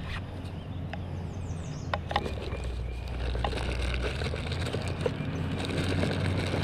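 Scattered clicks and knocks of hands handling a freshly caught fish and a scale for weighing it, over a low steady hum.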